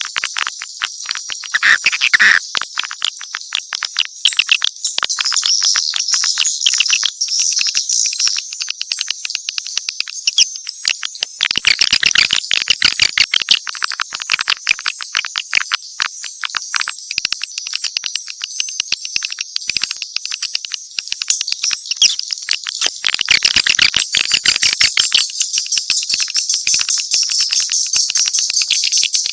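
A dense, continuous chorus of swiftlet chirps and twittering, mixed calls overlapping into rapid, high-pitched clicking chatter. It is the kind of swiftlet call recording played to lure birds into nesting houses.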